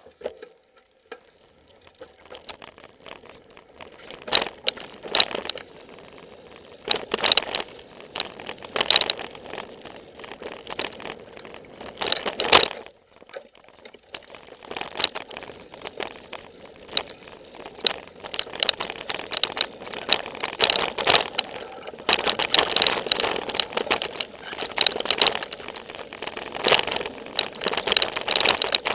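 A mountain bike rattling and clattering on a downhill dirt trail: knocks and rattles of the bike and the crunch of its tyres on dirt, picked up by a camera mounted on the bike or rider. Nearly quiet for the first few seconds, then scattered bursts, becoming dense and louder in the last third.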